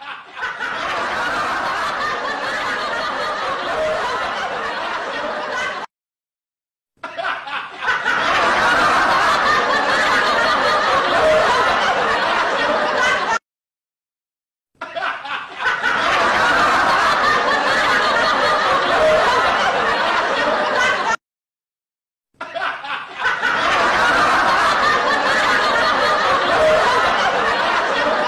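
People laughing and chuckling in a short clip that repeats: the same roughly six-second stretch plays four times over, each one cutting off abruptly into about a second of dead silence before starting again.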